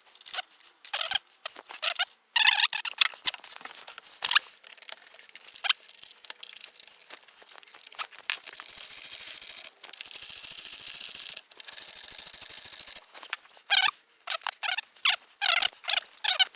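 Fast-forwarded audio: short, high-pitched, squeaky chirps, with a steadier hiss with fine ticking between about eight and thirteen seconds in.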